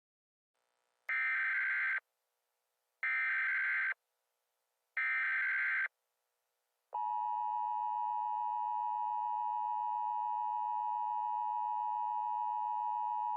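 Emergency Alert System header and alarm: three bursts of warbling digital SAME data, about a second each and a second apart, then the steady two-tone EAS attention signal, which starts about seven seconds in and holds unchanged.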